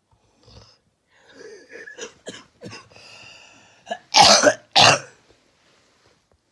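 A person with a cold clearing the throat with a run of rasping, breathy sounds, then coughing twice loudly about four seconds in.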